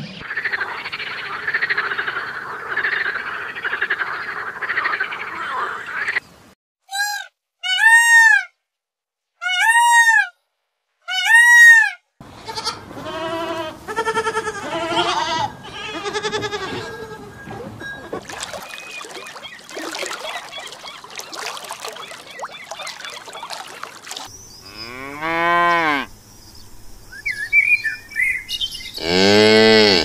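Different animals calling one after another: a toad calling for about the first six seconds, then four short arched calls, then a goat bleating several times, and near the end a water buffalo lowing.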